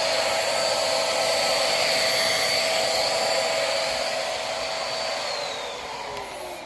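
Corded vacuum cleaner with a roller-brush head running on a rug: a steady motor whine over rushing air. About five seconds in it is switched off and the whine falls in pitch as the motor winds down.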